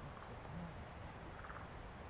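Wood fire burning in a fire pit, faint and steady, with a short faint low tone about half a second in and a faint pulsed chirp about a second and a half in.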